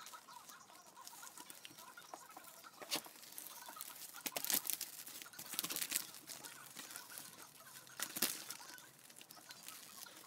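Clear plastic vacuum-bagging film crinkling and crackling as hands press and smooth it around a mould, in irregular bursts with louder crackles about three, four and a half, six and eight seconds in.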